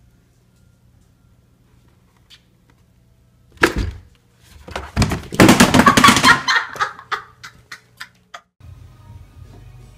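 Sudden loud crash, then a rapid clatter of knocks and a few last sharp clicks: a plastic laundry basket being banged about as a startled cat scrambles inside it and out.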